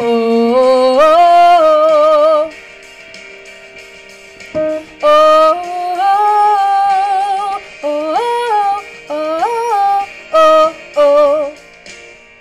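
A woman singing the alto line with vibrato over piano accompaniment: one long held phrase that climbs in pitch, a pause with only the piano, then a run of shorter sung phrases.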